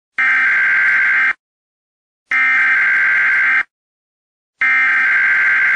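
Electronic warning buzzer sound effect: three long, identical buzzing tones of a little over a second each, about a second apart.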